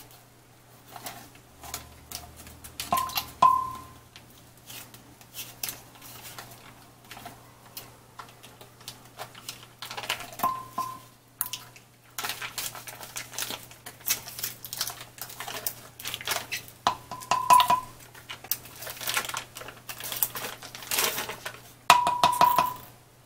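A spoon scraping a bar of cream cheese out of its foil wrapper into a glass blender jar: foil crinkling and rustling, with four knocks on the jar that each leave a short ring.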